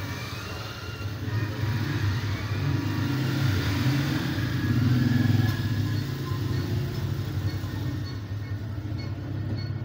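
Motor vehicle engine rumble, growing louder to a peak about five seconds in, then fading.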